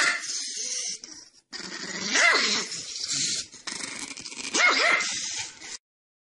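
A pet animal giving short, bark-like calls: one about two seconds in, then a quick pair later, over a hissy background. The sound cuts off suddenly shortly before the end.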